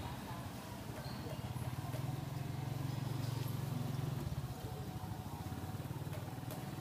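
Low, steady rumble of a small engine running, louder for a couple of seconds in the middle, over faint background noise.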